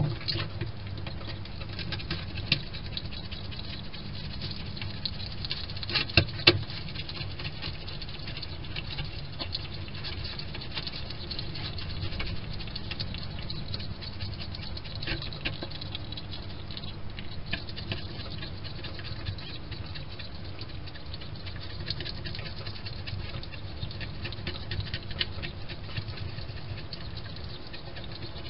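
European hedgehog eating: a long, dense run of small crunching clicks as it chews, with a few louder clicks about two and a half seconds and six seconds in.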